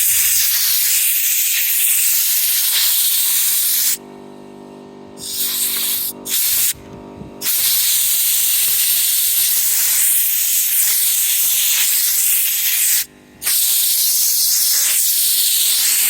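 Compressed air blasting from an air compressor's blow nozzle in long hissing bursts: it stops about four seconds in, comes back as two short blasts, then runs long again with a brief break near the end. A steady hum sounds in the pauses.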